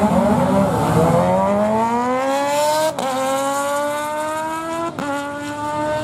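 A car and a motorcycle launching in a drag race: engines accelerating hard with a climbing pitch, broken by quick upshifts about three and five seconds in.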